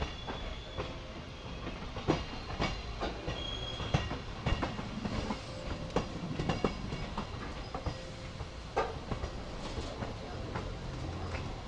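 Passenger train coaches running on the rails, a steady low rumble of the wheels with irregular clicks and knocks over the track, heard from the coach's open door.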